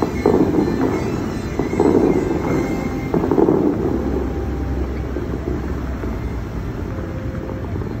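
Rushing water from the Bellagio fountain show's jets, surging three times about a second and a half apart, then running steadier.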